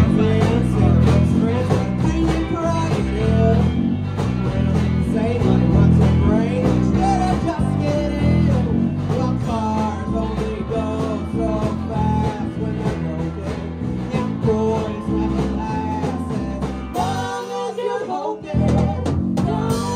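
Live rock band playing: lead vocals over electric guitar, bass guitar and a drum kit. About seventeen seconds in, the bass and drums briefly drop out, then the full band comes back in near the end.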